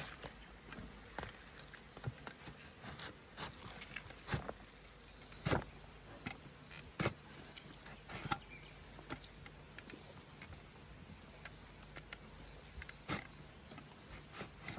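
Eggplant being sliced lengthwise on a V-blade mandoline slicer: short, sharp strokes of the vegetable across the blade, irregular, about one a second, the loudest a little past the middle.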